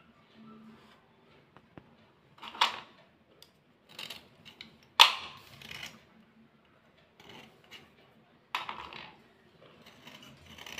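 A blade scraping white slate pencils in short separate strokes, with pauses between them. About five seconds in comes a sharp click, the loudest sound.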